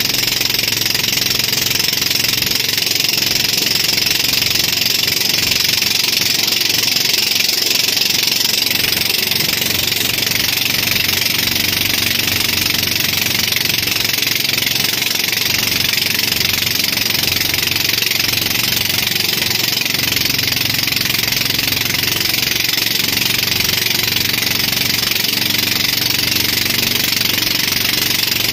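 Engine of the towing boat running steadily under way, with a loud, even hiss of wind and rushing wake water over it.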